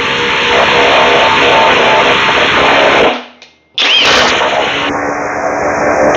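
Cordless impact drivers running at full speed, their hammer mechanisms rattling as they work screws. The sound drops out suddenly about three seconds in and comes back just as loud under a second later.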